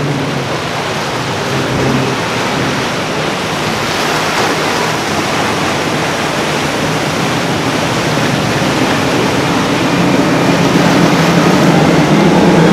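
Powerboats running fast through the inlet: a loud, steady rush of wake and spray. The drone of outboard engines grows louder near the end as a boat with four outboards passes.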